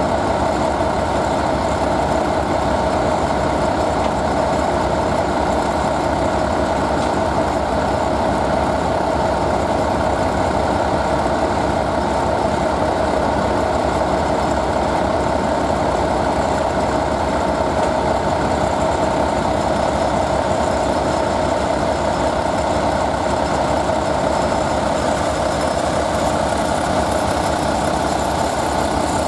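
Diesel locomotive engine running steadily, an unbroken drone that holds the same level throughout.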